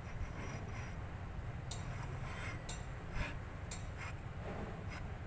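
Scattered light metal clinks and taps, about half a dozen, from hand work on a truck differential being adjusted, over a steady low hum.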